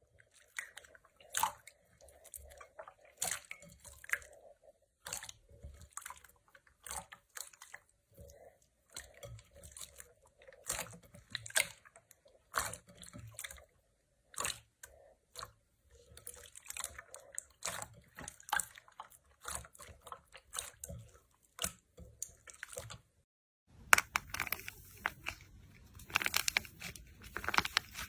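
Slime being pressed and squeezed by hand, giving irregular wet crackles, pops and squishes in short clusters. After a brief silence near the end, a louder, denser run of crackling starts.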